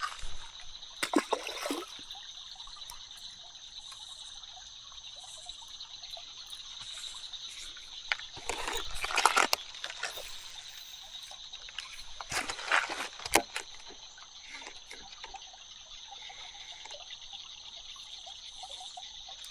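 Creek water running over shallow rapids, with a steady high-pitched chorus of insects trilling throughout. A few short, louder noises come about a second in, around nine seconds and around thirteen seconds.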